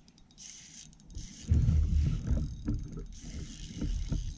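Spinning reel being cranked while a hooked fish is fought from a kayak, with uneven low knocks and rumble from movement against the hull starting about a second and a half in.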